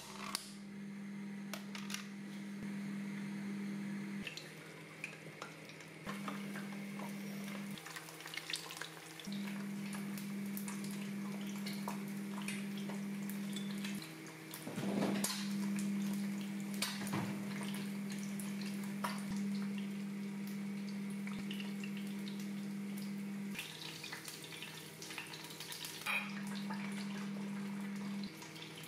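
Kitchen plating sounds: occasional clinks and knocks of dishes, glass bowls and utensils over a steady low hum that drops out and returns several times.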